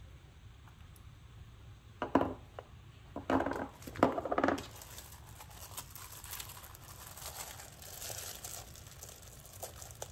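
A few knocks as rolls of washi tape are set down on a desk, then the crinkling of cellophane and plastic sticker packaging being handled.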